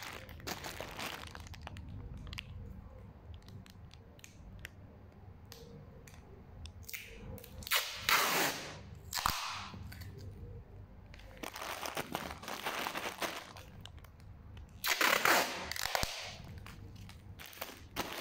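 Clear packing tape being pulled and torn and a plastic-wrapped parcel crinkling, with two loud ripping bursts, one a little before halfway and one near the end, among small crackles and clicks.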